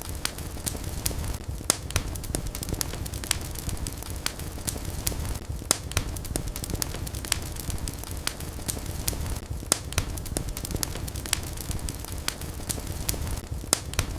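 Wood fire burning in a fireplace: a steady low rumble of flames with frequent sharp crackles and pops, several a second.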